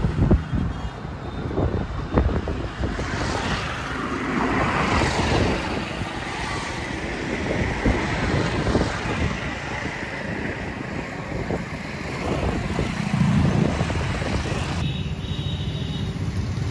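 Road traffic passing on a bridge, mixed with wind buffeting the microphone: an uneven rumble with occasional knocks.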